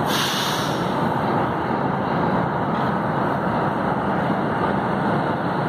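Metro train standing at the platform with its doors open: a steady rumbling noise of the train and station, with a short sharp hiss of released air right at the start.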